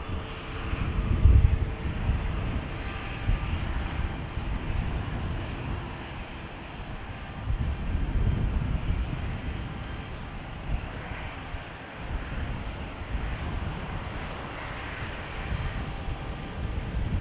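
Jet airliner engines heard from a distance at taxi power: a steady rushing noise with deeper rumbles that swell about a second in and again around eight seconds.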